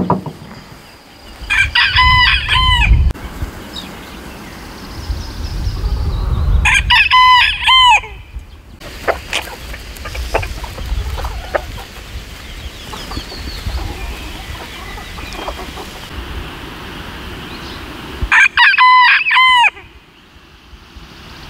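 Rooster crowing three times, each crow about a second and a half long, spaced several seconds apart.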